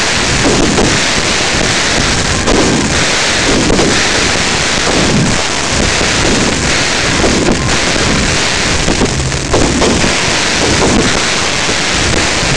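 Fireworks going off at close range: a dense, continuous crackling hiss from glittering crackle effects, with repeated dull bursts about every second or so.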